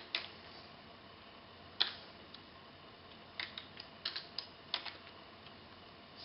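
Computer keyboard keys clicking as a login password is typed: a couple of single presses first, then a quicker, uneven run of keystrokes in the middle.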